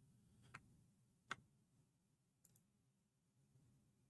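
Computer mouse clicking a few times against near silence: single faint clicks, the loudest about a second in, and a faint quick double click about halfway through.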